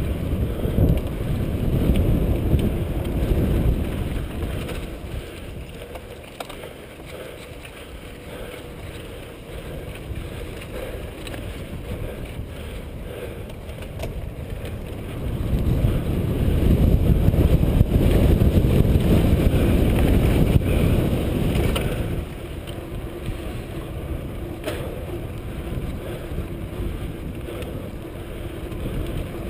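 Wind rumbling over the microphone of a camera moving along with a mountain bike on a dirt track, with a few faint rattles. The rumble swells for several seconds a little past halfway, then drops back.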